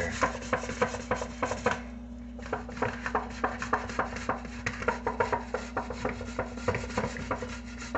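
A boiled potato being grated on a stainless steel grater: quick rasping strokes, several a second, with a brief pause about two seconds in.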